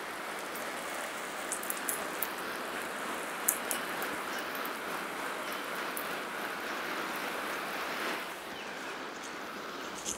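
Water spraying from a garden hose: a steady hiss of spray falling on grass and plants, easing slightly about eight seconds in.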